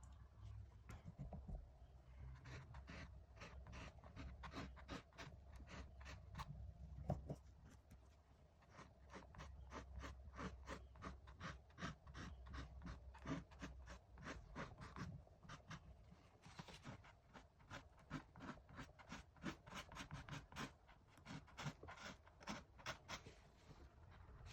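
Faint, quick scratching strokes of a paintbrush working oil paint on canvas, a few strokes a second with short pauses, over a low steady hum.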